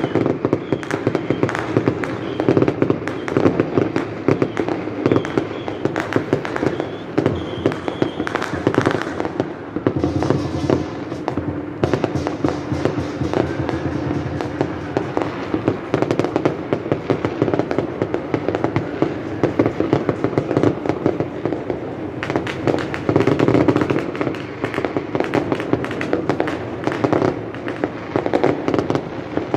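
Many fireworks and firecrackers going off across a city: a dense, continuous crackling and popping with no pause.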